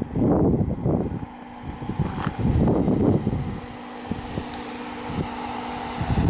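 Jeep Wrangler Rubicon engine running at low speed as it crawls over rock toward the listener, with loud irregular buffets of wind on the microphone, strongest in the first second and again about two and a half seconds in.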